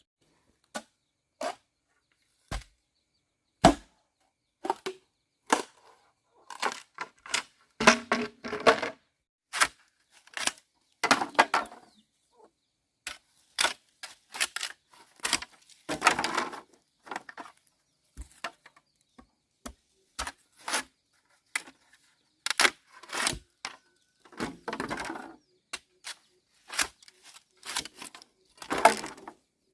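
Irregular sharp knocks and clatters of manual work, with a few longer scraping or rustling stretches between them. These fit hand work on wood, such as chopping or knocking fence materials.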